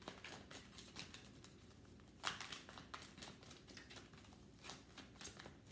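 Tarot deck being shuffled overhand, cards sliding and flicking against each other in faint, irregular soft rustles.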